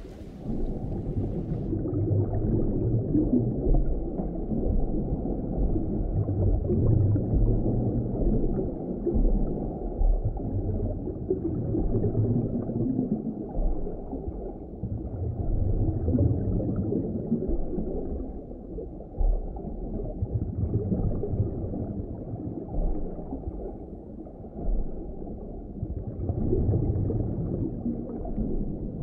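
Muffled underwater water ambience: a continuous low, uneven rumble and gurgle of water with the higher sounds cut away. The open surf sound fades to this muffled sound in the first two seconds.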